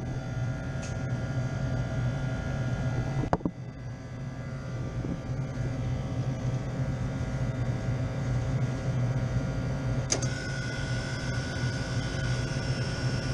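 Old commercial sandwich cooler's refrigeration unit running, its compressor and fans making a steady electrical hum. A sharp click comes about three seconds in and another about ten seconds in, after which a steady higher tone joins the hum.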